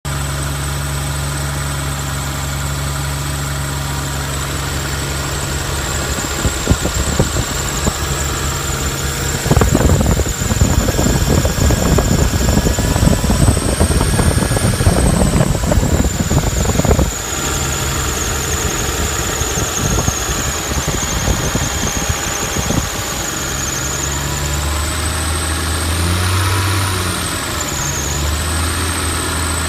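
Toyota Chaser JZX100's straight-six idling in the engine bay, with a thin high-pitched squeal over the engine hum; the squeal wavers up and down in pitch near the end. This is the abnormal engine-bay noise under investigation. From about ten to seventeen seconds a louder, irregular rattling clatter is heard over the idle.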